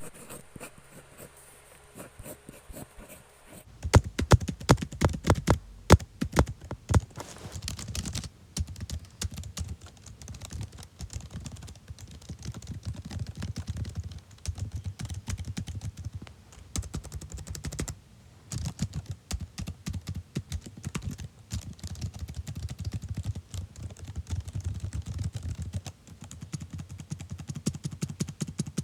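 Typing on a computer keyboard: after a quiet opening, rapid key clicks start about four seconds in, with some harder strikes at first, then a steady run of keystrokes with a brief pause about two-thirds of the way through.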